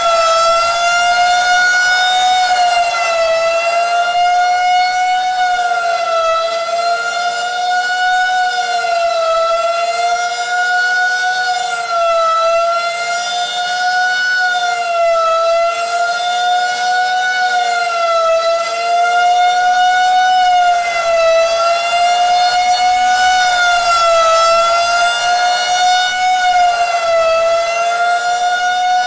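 Outdoor tornado warning siren sounding a loud, steady tone during its monthly test. Its pitch sways slightly up and down every few seconds.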